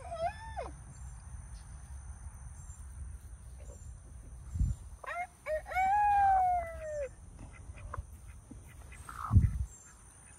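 Rooster crowing: the end of one crow right at the start, then a full crow about five seconds in, a few short notes leading into one long falling note. Two dull thumps, the louder one near the end.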